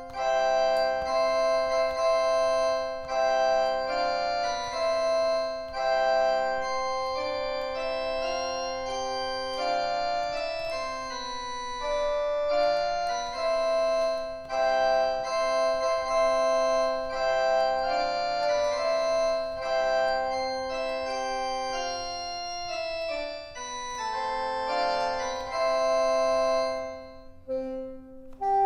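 EASYPLAY 1s pocket keyboard playing a melody over held chords on an organ-style sound preset. The playing breaks up into short notes near the end.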